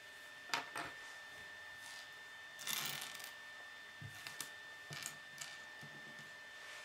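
Small plastic Lego pieces handled and set down on a wooden tabletop: a few light clicks and knocks, with a brief rustle about three seconds in.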